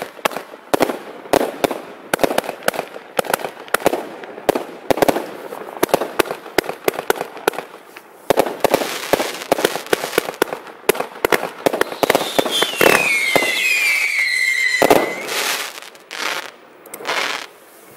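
Pyroland 'Proud and Loud' 36-shot, 25 mm firework cake firing: a rapid series of launches and bursts. A falling whistle starts about twelve seconds in and ends in a loud bang, followed by two more bursts near the end.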